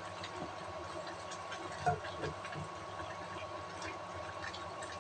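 Wooden spatula stirring chicken curry in a nonstick pan: faint scrapes and soft ticks, with two slightly louder knocks about two seconds in, over a steady faint high whine.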